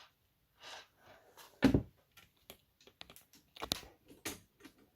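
Handling noise on a desk: scattered clicks, taps and rustles of plastic objects being moved, with one louder thump about 1.7 s in and another sharp knock near 3.7 s.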